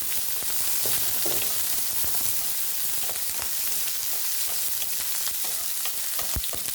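Hot oil sizzling steadily in a pan while sautéing, with scattered clicks of a spatula or spoon stirring against the pan.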